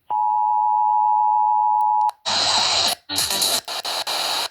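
Emergency Alert System two-tone attention signal (853 and 960 Hz together) sounding steadily for about two seconds and then cutting off abruptly. It is followed by loud hissing noise in chunks broken by short gaps.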